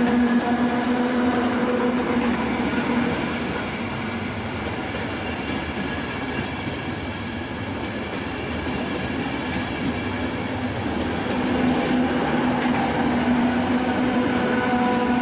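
ČD class 470 double-deck electric multiple unit running past on the track: a steady rumble of wheels and running gear with a held hum of several steady tones.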